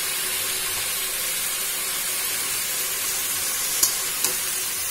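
Mixed vegetables sizzling steadily in hot oil in a metal pan, with two light clicks near the end.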